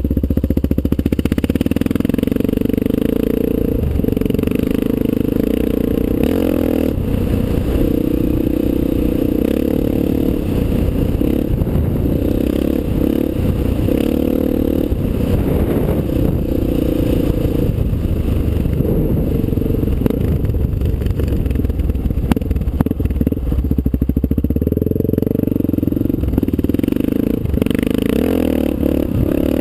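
Honda XR600's single-cylinder four-stroke engine running under way at riding speed, its note shifting up and down a little several times as the throttle changes.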